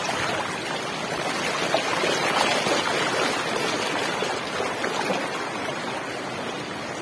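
Floodwater rushing steadily over a submerged bridge deck, with splashing as someone wades through the current.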